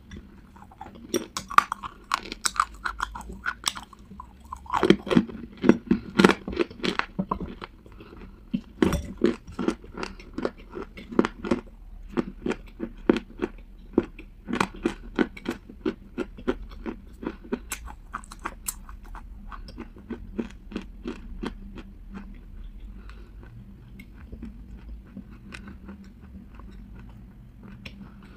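Lumps of dry clay being bitten and chewed: a rapid run of crisp crunches, about two to three a second, loudest a few seconds in, then fading to softer, sparser chewing near the end.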